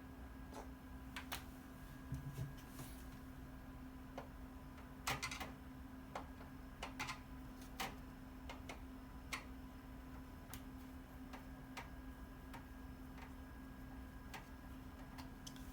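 Irregular light clicks and ticks, a few loud ones around five and seven seconds in, over a faint steady low hum.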